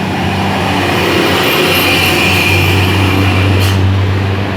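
Large bus passing close by, its engine running with a steady low hum under a loud rushing roar that swells over the first couple of seconds, and a brief hiss a little before the end.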